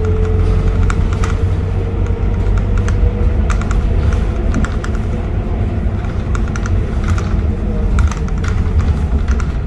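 Scania K230UB city bus heard from inside the passenger cabin while under way: a steady low diesel engine and road drone, with interior panels and fittings rattling and clicking over it.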